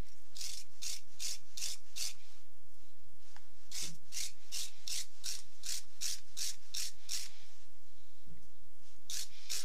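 Steel wire brush scrubbing a small brass hose fitting in quick back-and-forth scratching strokes: about five strokes, a pause, then a run of about ten at nearly three a second, and two more near the end.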